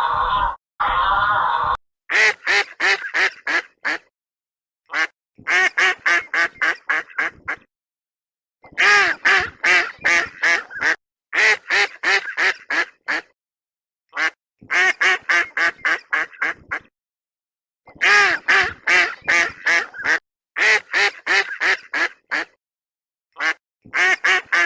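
Duck quacking in repeated runs of short, evenly spaced quacks, about three to four a second, each run lasting two to three seconds with brief silent gaps between runs.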